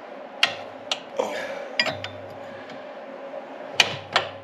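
Hand wrench clinking against the metal of a Yamaha G2 golf cart engine as it is turned over by hand for valve lash adjustment: about five sharp, separate metallic clinks.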